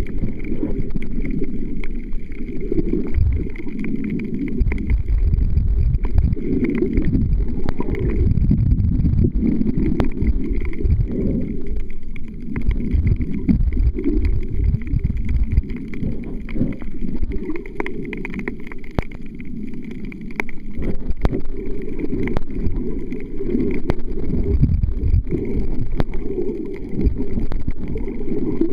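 Muffled, uneven rushing and sloshing of water heard through an underwater camera, as the swimmer moves through the sea, with a few faint clicks.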